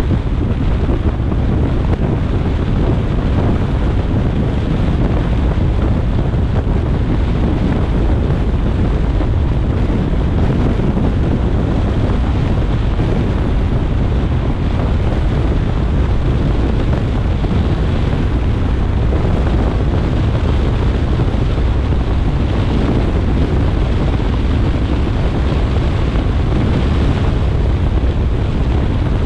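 Steady wind and road noise of a car travelling at expressway speed on a rainy day, a dense, unbroken rush that is heaviest in the low end.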